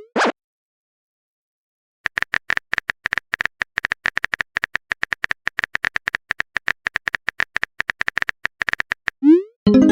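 Phone-keyboard typing sound effect: rapid clicks, about ten a second, starting about two seconds in after a short silence. Near the end a quick rising swoop, as of a message being sent, then the start of a pitched alert tone.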